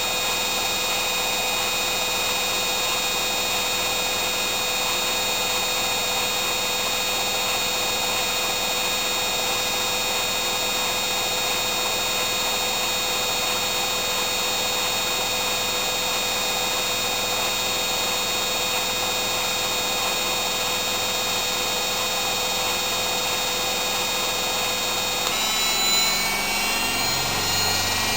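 Hoover Inter@ct washing machine in a high-speed spin, its transplanted Candy motor and drum running with a steady whine and hum. About 25 s in the pitch changes and the tones start to glide as the spin speed shifts.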